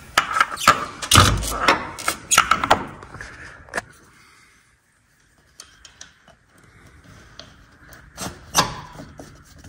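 Knocks and clunks of a new front strut and top mount being pushed up into a Camaro's strut tower while its nut is caught, with a heavy thump about a second in. It goes nearly quiet for a couple of seconds in the middle, then a few light clicks and a sharp knock near the end.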